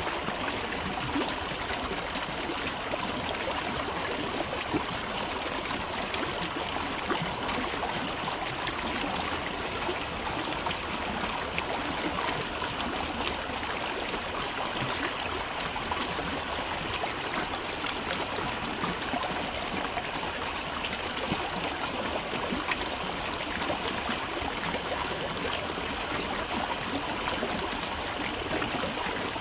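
A small brook flowing: a steady, even rush of water with many small splashes.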